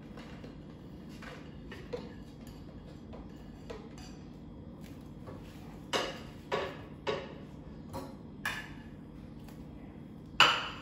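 Kitchen handling noise: knocks and clinks of dishes and containers on a countertop, a few faint ones early, then about six sharper ones in the second half, the loudest near the end, over a steady low hum.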